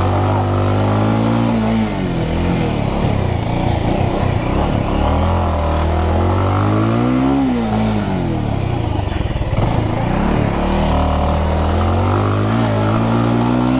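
Motorcycle engine revving up and down several times, with the longest climb in revs about halfway through, as the bike stays stuck in a pit on a steep off-road climb and fails to get out.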